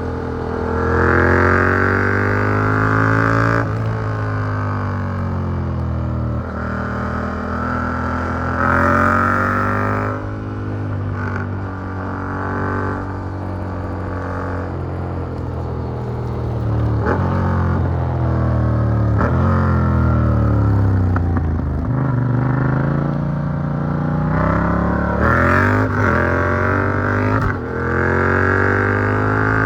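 Yamaha MT-07's parallel-twin engine through an Arrow Works full exhaust with dB killer, pulling hard up through the gears: the pitch climbs, then drops sharply at each shift. Through the middle it falls in pitch as the bike slows, with short blips, before accelerating again.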